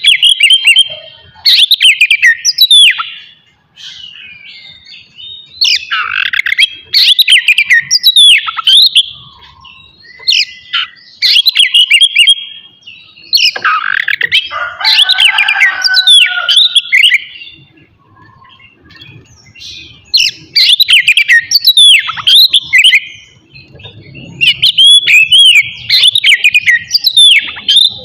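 Oriental magpie-robin (kacer) singing loudly in repeated phrases of a second or two, each a run of quick sweeping whistled notes, with short pauses between them and a harsher, rasping passage about halfway through.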